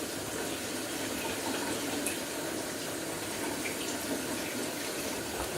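Hot water running steadily from a tap.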